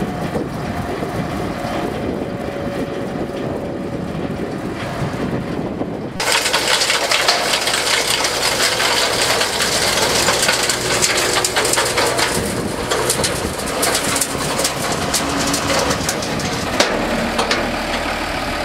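Estrella Blanca tractor-towed compost windrow turner running along a compost row. About six seconds in, the sound jumps to a louder, dense rushing and crackling of compost being churned and thrown out by the turner's tined rotor.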